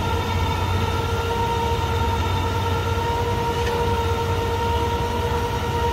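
A motorised winch runs steadily as it raises a ham radio lattice tower: an even whine that holds two pitches over a low hum.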